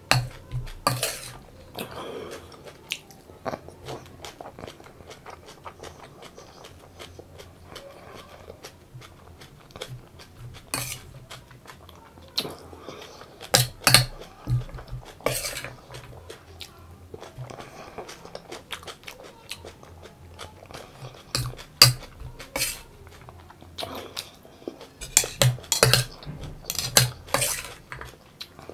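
Metal spoon scraping and clinking against a steel plate in scattered sharp strokes while sprouts salad is scooped up, with chewing and crunching between.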